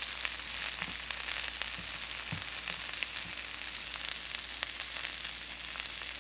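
Aged-kimchi cabbage rolls frying in oil in a nonstick pan: a steady sizzle with scattered small crackles.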